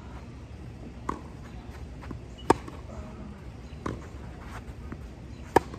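Tennis rally: a ball struck back and forth by racket, four sharp pops about one and a half seconds apart, the louder ones from the nearer player's racket.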